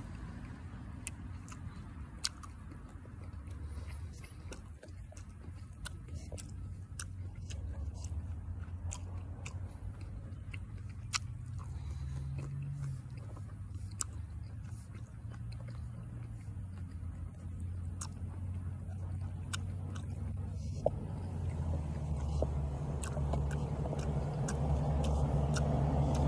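Close-up chewing of cactus fruit, with many small sharp clicks and crunches. A low rumble runs underneath and grows louder near the end.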